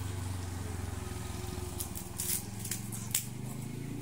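A small engine runs steadily with a low hum. In the second half, a few short, sharp crackles and scrapes sound as a large python is handled on gritty ground.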